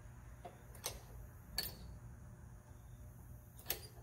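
A few sharp metallic clicks, spaced irregularly, from the lift being slowly jacked up against the chain, over a steady low hum.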